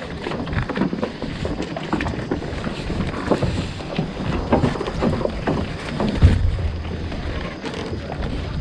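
Irregular knocks and clatter on a small fishing boat over a steady low rumble of wind and water, with a heavier thump about six seconds in.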